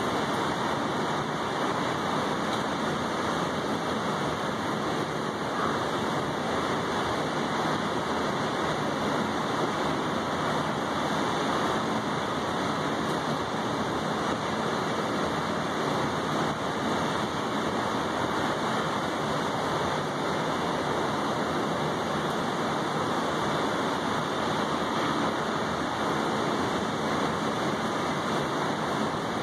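Steady rain falling on a wet balcony table and railing, an even, unbroken hiss with no single drops standing out.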